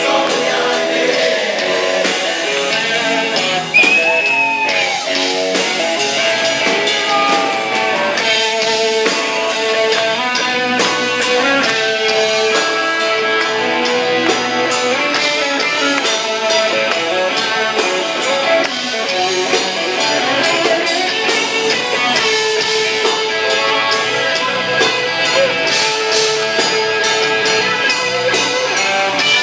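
Live rock band playing loudly: electric guitars over a steady drum beat, with singing.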